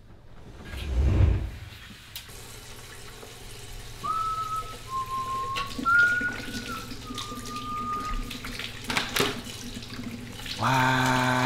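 Kitchen faucet running water into the sink, with a short whistled tune over it in the middle and a sharp knock near the end. Just before the end a low voice starts holding one long note.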